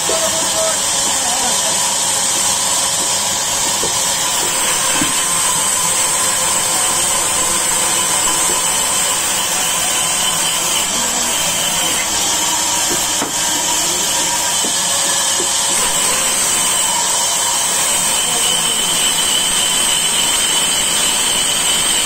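Large vertical band sawmill running and cutting lengthwise through a log fed along its table: a steady high-pitched whine with a hiss of the blade in the wood.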